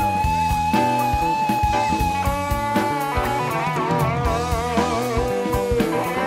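Rock music with electric guitar and a steady drum beat; the lead guitar holds long notes with vibrato.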